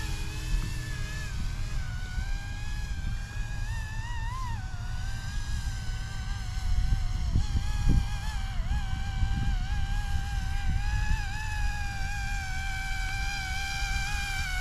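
YUXIANG F09-S RC helicopter's electric motor and rotors whining steadily in flight, the pitch wavering up and down as the throttle changes, with a brief rise about four seconds in. Wind buffets the microphone underneath.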